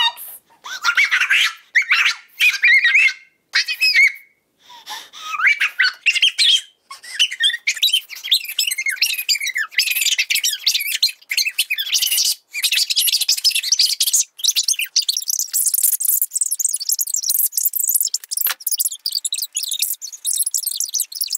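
A boy's ranting voice sped up so far that it has become rapid, high-pitched squeaky chatter with no words left to make out. It climbs higher and gets denser as it goes, ending as an almost continuous chirping twitter.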